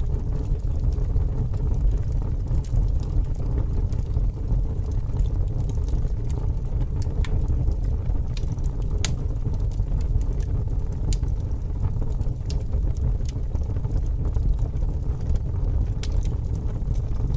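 Bonfire burning: a steady low rumble with irregular sharp crackles and pops from the burning wood, a few at a time every second or so.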